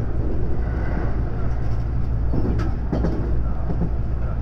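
JR West 521 series electric train running along the line, heard from inside its front car: a steady low rumble of wheels on rail, with a few short knocks about halfway through.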